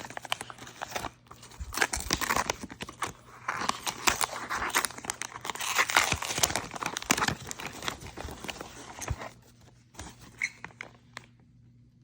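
Packaging being unwrapped by hand, crinkling and tearing in a rapid run of rustles and crackles. It stops about nine seconds in, leaving only a few light clicks and handling noises.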